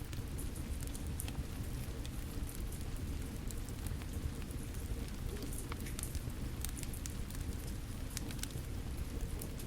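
Wood fire crackling with frequent sharp pops and snaps over a steady patter of rain.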